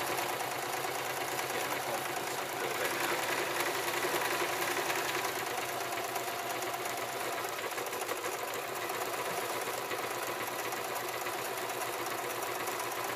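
Electric domestic sewing machine running steadily, its needle stitching a straight seam through hammock fabric at a slow, even speed.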